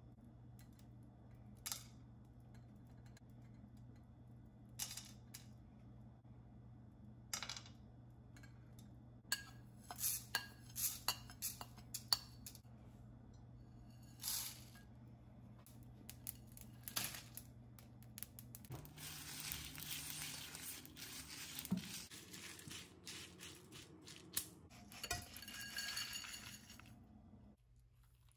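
Whole dry spices dropped into an empty nonstick pan: separate light clicks and clinks, with a quick run of them midway. Later come two longer dry rattling rushes of loose spices, the last as they go into a spice grinder jar. A low steady hum runs underneath.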